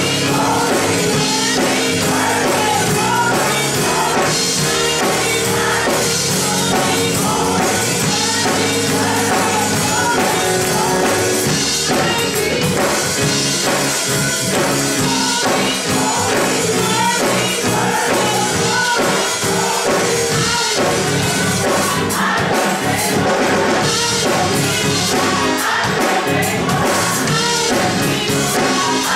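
Church choir singing a gospel song.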